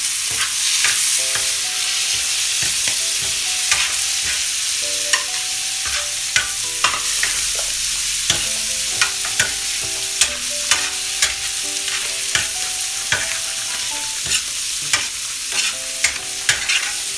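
Chopped tomatoes and mutton liver sizzling in oil and butter on a hot iron tawa, stirred with a metal spoon that clicks and scrapes against the griddle. The clicks come more often in the second half.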